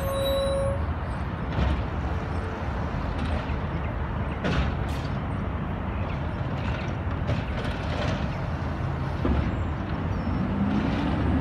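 Peterbilt 320 automated side-loader garbage truck's diesel engine running steadily while its side arm lifts and empties a trash cart, with a few short clanks.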